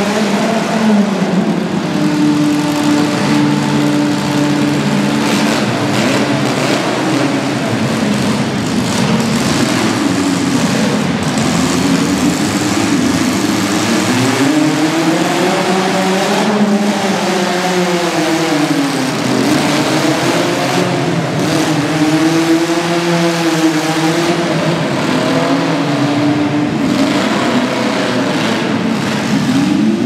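Several demolition-derby compact-car engines running at once, revving up and down so their pitch rises and falls, with a few knocks mixed in.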